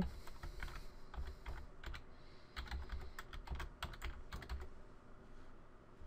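Typing on a computer keyboard: a quick, irregular run of keystrokes that stops a little over a second before the end.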